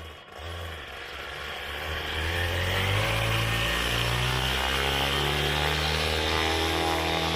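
Paramotor engine and propeller at take-off power, getting louder and rising in pitch over the first three seconds or so, then running steadily at full throttle.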